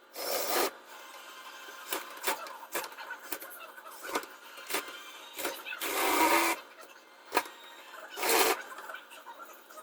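Scattered clicks and knocks from handling work, with three short bursts of rushing noise about half a second long: one at the start, one at about six seconds and one just past eight seconds.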